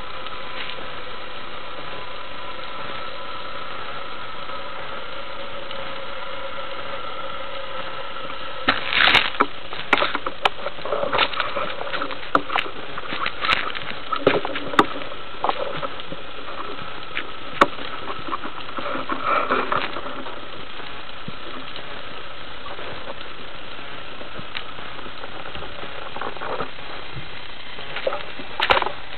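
Underwater sound picked up by a camera on a speargun during a breath-hold dive: a steady hiss with a faint hum. About nine seconds in, a run of sharp clicks and knocks starts and keeps on for about ten seconds, with a few more near the end.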